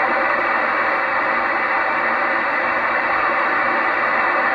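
Kenwood 2-metre FM transceiver putting out steady loud hiss: receiver static once the International Space Station's voice downlink has faded out and the signal is lost.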